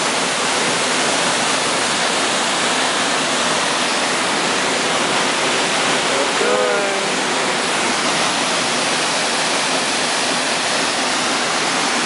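Waterfall's steady rush of falling water, unbroken throughout. A brief voice is heard about halfway through.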